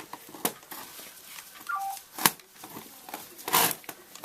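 Small metal parts and hand tools clicking and rattling while a nut is fitted to an RC buggy's rear suspension, with a short squeak, a sharp click about two seconds in and a brief scraping rattle near the end.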